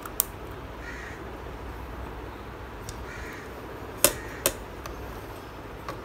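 Crows cawing in the background, two faint caws a couple of seconds apart. Over them come a few sharp clicks and knocks from handling an amplifier module and its heatsink, loudest as a pair about four seconds in.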